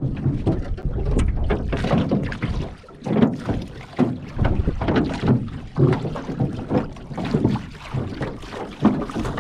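Wind buffeting the microphone over water sloshing and splashing around a small boat, in irregular surges about once a second.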